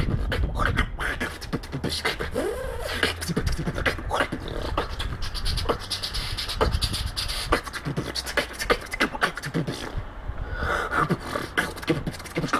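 Beatboxing: rapid mouth-made clicks and drum-like hits over a low hummed bass, with a brief rising-and-falling vocal tone about two seconds in.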